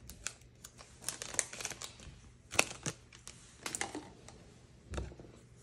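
Foil Pokémon booster-pack wrapper crinkling as it is opened, then trading cards being pulled out and handled: a scattered run of sharp crackles and clicks, the sharpest about two and a half seconds in.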